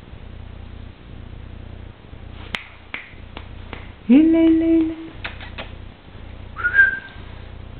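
A person's voice calls out once in a single drawn-out note, rising then held for about a second, a little past the middle. A few sharp clicks come before and after it, and a short high squeak rises near the end.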